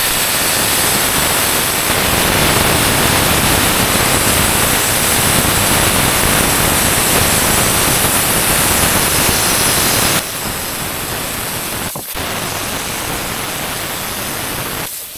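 Cutting torch hissing steadily as it cuts through the steel hinge of a dump truck bed. The hiss drops to a lower level about ten seconds in, cuts out briefly near twelve seconds, and stops near the end.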